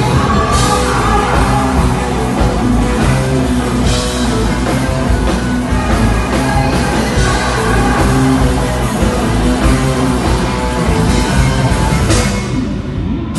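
Live band music played loudly through a concert PA, with drums and guitar, recorded on a phone from the crowd. It dips briefly near the end.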